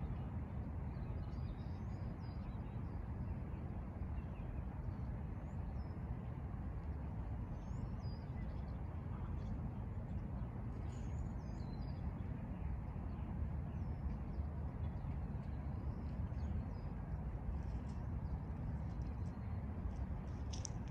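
Steady low outdoor rumble with a few short, scattered bird chirps above it; no crossing bell is ringing.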